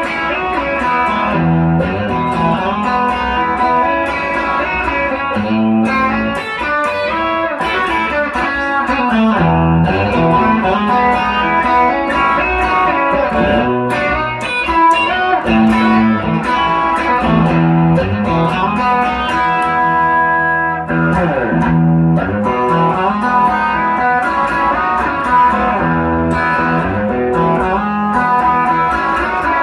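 1957 Fender Esquire electric guitar fitted with a 1950s Fender lap-steel flat-pole pickup, played straight into a 1965 Fender Deluxe Reverb tube amp. It plays chords and single-note lines with a few string bends, in a bright, lightly compressed tone.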